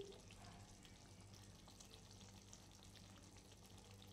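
Faint sizzling and crackling from hot egg and spinach curry in a kadai just taken off the flame, over a low steady hum.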